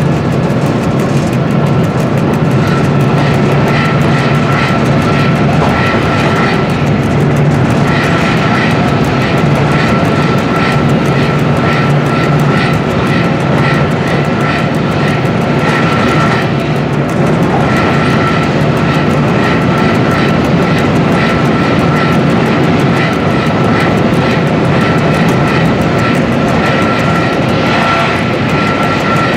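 Loud, steady cab noise of a VR Dr12 diesel-electric locomotive under way: a constant engine drone with a thin high whine held over it.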